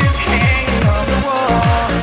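Electronic dance music with no vocals: a steady kick drum at about four beats a second under synth melody lines, the kick dropping out for a moment just over a second in.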